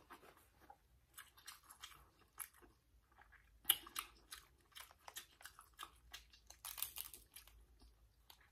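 Close-miked eating of king crab legs: soft, scattered crunches and crackles of crab shell being cracked, with chewing. The sharpest crunch comes a little under four seconds in, and a cluster of them comes around seven seconds.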